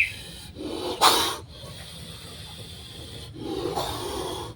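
Angry snake hissing in two breathy, snore-like bursts: a short loud one about a second in and a longer, softer one near the end.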